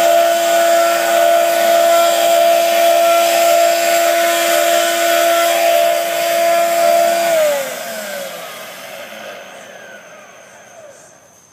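Electric motor running with a steady hum and hiss, then switched off about seven seconds in, its pitch falling as it spins down and fades.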